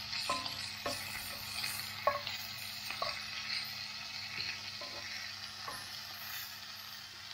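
Lamb chops sizzling in hot fat in a frying pan. Metal tongs click against the pan about six times as the chops are moved and turned.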